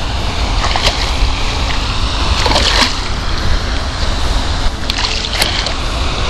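A hooked largemouth bass splashing at the water's surface in three bursts as it is reeled in, over a steady low rumble of wind on the microphone.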